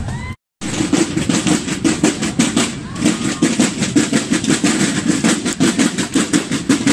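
Marching drum corps playing snare drums in a fast, steady beat, a dense run of strikes. The sound drops out completely for a moment about half a second in, cutting off some brass band music.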